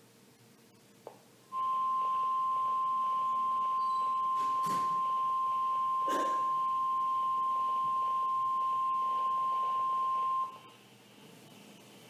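NOAA Weather Radio's 1050 Hz warning alarm tone coming from a Radio Shack 12-519 weather radio: one steady, unbroken beep that starts about a second and a half in and holds for about nine seconds. It is the alert tone that announces a warning, here a river flood warning. A faint hiss comes on with it, and two soft clicks sound partway through.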